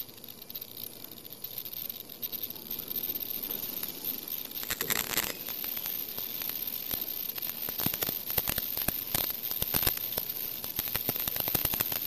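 Automatic non-woven filter bag making machine running: rapid, irregular mechanical clicking and rattling over a steady faint high whine. The clicking grows denser and louder about five seconds in.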